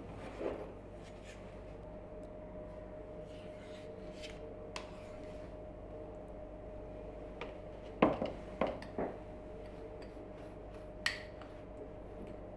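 A metal spoon knocking and scraping against a plastic tub, a glass jar and a mixing bowl as sour cream and a spoonful of soda are added to a dough. A few sharp knocks come in a cluster about eight to nine seconds in, with one more about eleven seconds in, over a faint steady hum.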